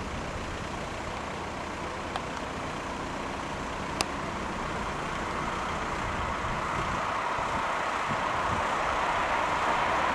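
Electric-hauled freight train approaching on the line, a steady rushing rumble growing gradually louder. A single sharp click about four seconds in.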